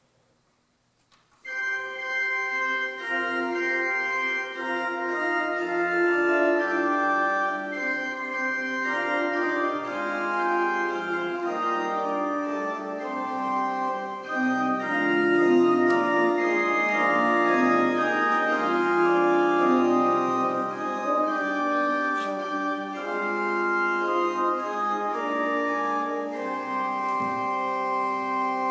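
Organ music: held notes sounding together in slowly changing chords, starting about a second and a half in after near silence.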